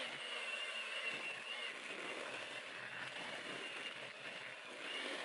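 Electric hand mixer running steadily with a thin high motor whine, its beaters churning wet cake batter in a bowl.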